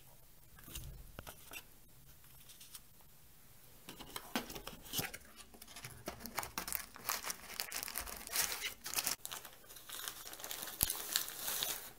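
Crinkling and rustling of the camcorder's white protective wrapping as it is lifted from the box and unwrapped. The irregular crackles start about four seconds in, after a quieter stretch of light handling.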